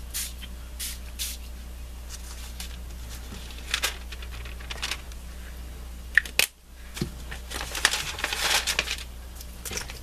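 Several short hissing spritzes from a pump mist spray bottle of craft ink onto a paper envelope. In the second half comes a longer stretch of paper rustling as envelopes are moved and laid down.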